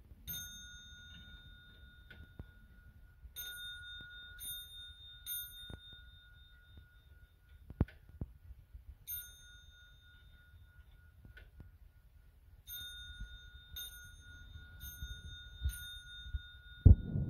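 Antique French mantel clock striking its bell as its minute hand is turned by hand. Each strike rings out with several bell tones: a single strike, then three, then another single, then four, which reads as half hours and the counted hours. A loud low knock sounds near the end.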